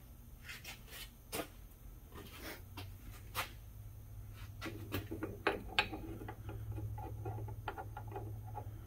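Light metal clicks, taps and rubbing as differential spider gears and shims are worked into place in the carrier by hand, with a low steady hum underneath that grows a little louder about three seconds in.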